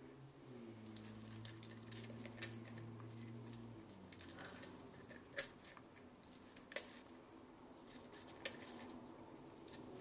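Hyacinth macaw's beak crunching and nibbling a peanut butter cookie: irregular small cracks and clicks, with a few sharper snaps.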